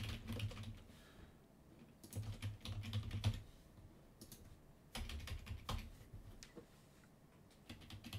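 Typing on a computer keyboard in three short bursts of keystrokes with pauses between, as text is entered into form fields.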